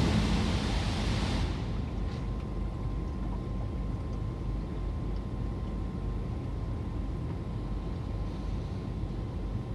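Water jets of a touchless LaserWash automatic car wash spraying the car, heard from inside the cabin, fading out about a second and a half in. After that a steady low rumble remains, with a faint thin hum.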